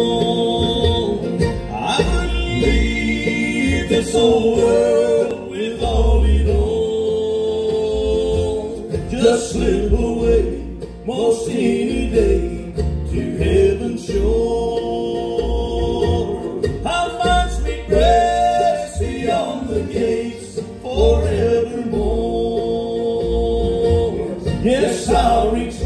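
Live bluegrass gospel band playing on acoustic guitars, mandolin and upright bass, with long held melody notes over a steady bass.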